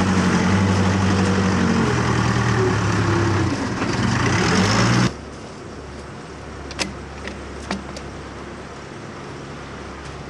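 An excavating machine's engine runs loud and steady with a low hum, shifting pitch slightly, then cuts off abruptly about five seconds in. After that there is only quieter outdoor background with a few faint clicks.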